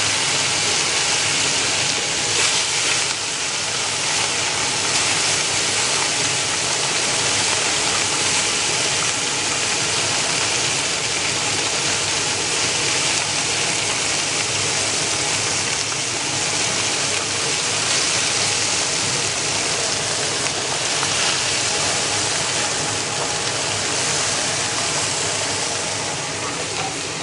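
Meatballs sizzling steadily as they fry in a pan, being turned partway through cooking.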